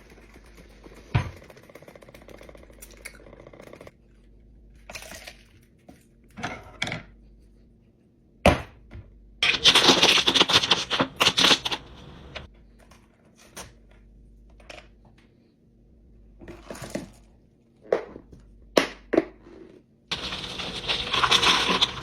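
Drink-making handling sounds: scattered sharp clicks and knocks of cups, lids and ice, with a rushing noise for a couple of seconds about ten seconds in and again near the end.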